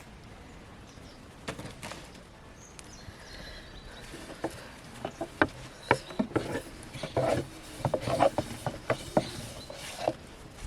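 Irregular light knocks and clicks over a faint outdoor background. They start about four seconds in and come thick and fast after that.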